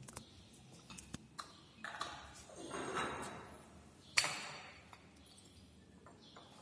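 Laboratory glassware being handled on a hard benchtop: a few light clicks and knocks, a brief rustling noise around two to three seconds in, then one sharp glass clink that rings on after it, just past four seconds.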